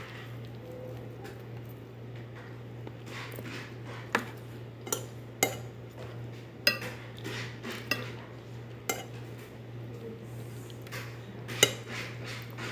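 Metal cutlery clinking and scraping against a ceramic dinner plate while eating, with about seven sharp clinks scattered through, the loudest near the end. A steady low hum runs underneath.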